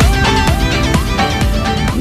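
Background music with a steady beat of about two beats a second and plucked, guitar-like notes.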